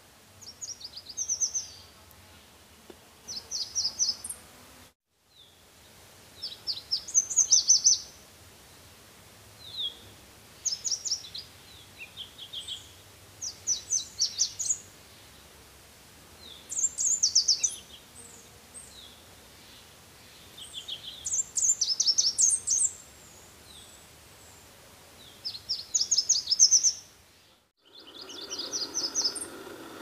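Red warbler (Cardellina rubra) singing: short phrases of rapid, high, sharp notes, repeated every two to three seconds. The sound cuts out completely twice for about half a second.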